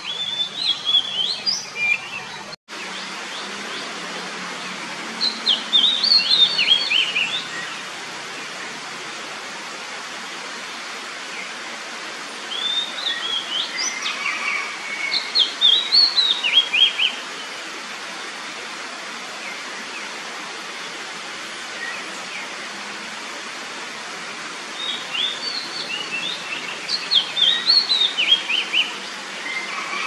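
Oriental magpie-robin singing: four phrases of rapid, high whistled notes with pauses of several seconds between them, over a steady background hiss.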